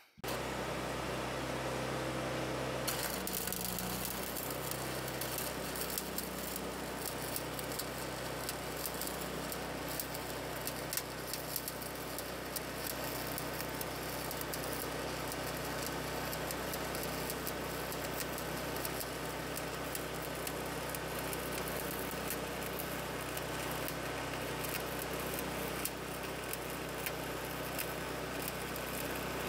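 Overhead stick welding with 7018 rod: the arc crackles and sputters steadily, growing stronger about three seconds in. Under the crackle runs a low, steady hum.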